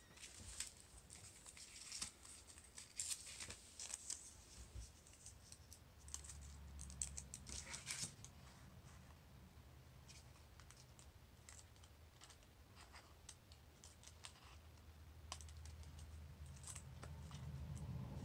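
Faint scattered clicks and crinkles of paper pieces being handled by hand while adhesive strips are pressed and pulled along their toothed edges. A faint low hum comes and goes in the background.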